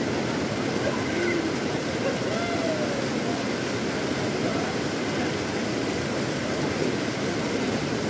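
Steady rush of river water tumbling over rocks and a small waterfall, with faint distant voices of bathers calling over it.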